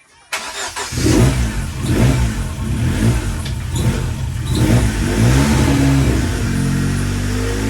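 Ford Sierra Cosworth's turbocharged four-cylinder engine starts up about a third of a second in, then runs with the revs rising and falling several times.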